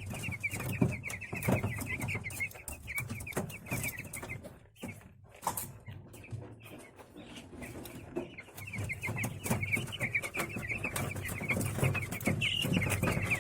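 A brooder full of broiler chicks peeping continuously in a dense chorus, with many short sharp clicks among the peeps. The peeping drops away briefly about five seconds in, then comes back.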